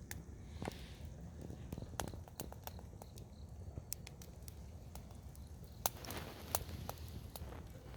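Irregular sharp clicks and small crackles over a low, steady rumble, with a short rustling burst about six seconds in.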